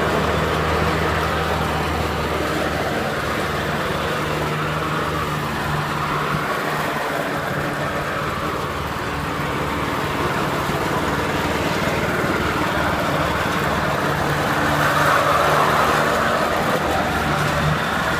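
Riding lawnmower engine running steadily under mowing, loud, swelling a little louder about fifteen seconds in.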